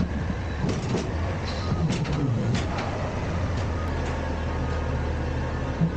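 Front-loader garbage truck's engine running under load as its hydraulic forks lift a steel dumpster. The engine pitch rises and falls, with several sharp clanks and knocks from the container.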